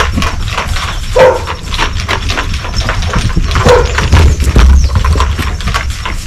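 A colt moving around on the lunge line, its hooves knocking on the ground, with two short animal calls about a second in and near four seconds in.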